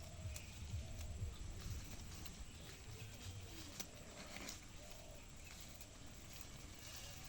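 Black Bengal goats feeding close by, with scattered crisp crackles and clicks as they tear and munch grass and dry fallen leaves. A short call repeats faintly in the background.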